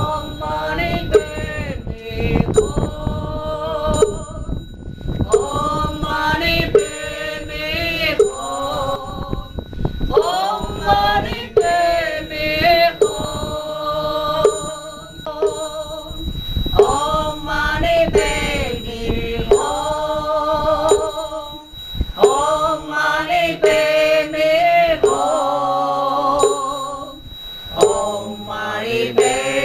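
Background music of a sung Buddhist mantra chant in phrases, with repeated bell-like chimes and a low beat.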